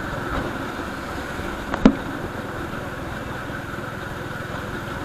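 A vehicle engine running steadily on the road, with one sharp click about two seconds in.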